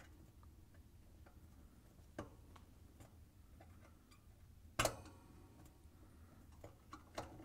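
A few light clicks and taps of a flathead screwdriver prying at the locking tab of an oven cavity light, metal and glass knocking as the lens is worked loose from the light box. The loudest, sharpest click comes about five seconds in, with a couple more near the end.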